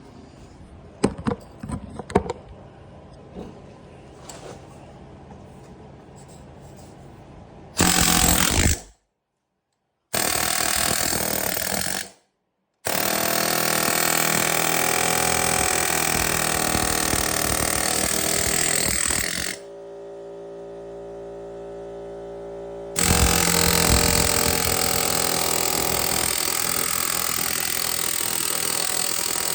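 Pneumatic air hammer with a chisel bit hammering in long, loud runs, driving the slides off a snowmobile's rails. The first several seconds hold only light clicks and knocks before the hammer starts, and it briefly stops twice.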